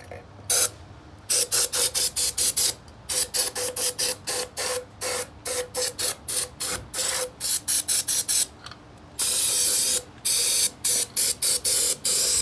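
Aerosol can of brake cleaner sprayed in rapid short bursts, about five a second with brief pauses, and one longer steady spray about nine seconds in. The spray is washing carbon buildup out of a removed throttle body whose gunked-up EGR ports are blamed for a P0401 insufficient-flow code.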